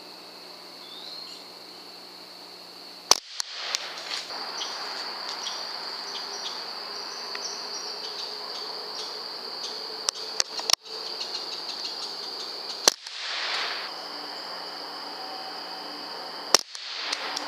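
Sharp cracks of .22 rifle shots from a Ruger 10/22, three loud ones about three, thirteen and sixteen and a half seconds in, with a few smaller clicks around ten seconds. A steady high insect trill runs underneath.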